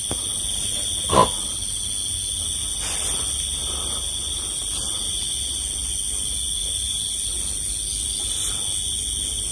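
Steady chorus of night insects: even, unbroken high-pitched trilling over a low hum, with one short, sharper sound about a second in.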